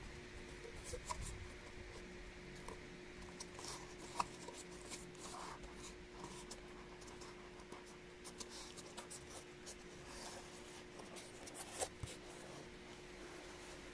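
Corrugated cardboard being handled: faint scratching and rubbing with light taps, a sharper tap about four seconds in and another near the end, over a faint steady hum.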